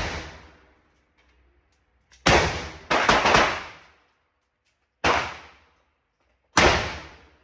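Gunshots on a shooting range: four single shots at an unhurried pace, the first two about half a second apart, each with a long echoing fade. At the start, the tail of an earlier shot is still dying away.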